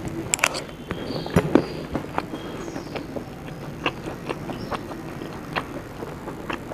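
A person chewing and crunching food close to the microphone, with irregular sharp crunches and clicks a few times a second and the loudest pair about a second and a half in.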